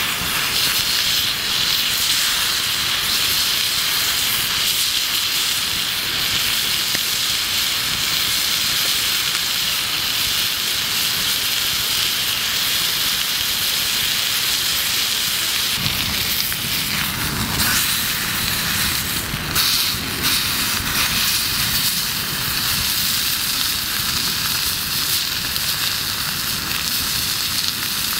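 Steak searing in a small cast-iron skillet over a wood campfire: a steady loud sizzle, with the fire beneath crackling. About two-thirds of the way through, a few sharp clicks and a low rumble come in briefly.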